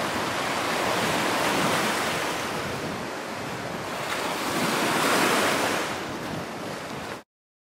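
Small waves washing in over shallow water on a sandy beach, swelling twice, then cutting off suddenly near the end.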